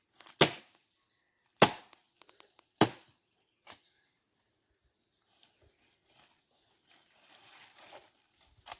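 An axe chopping dry wood: three sharp blows about a second apart, then a weaker one, followed by the softer crackle and rustle of wood being handled. A steady high insect drone sounds underneath.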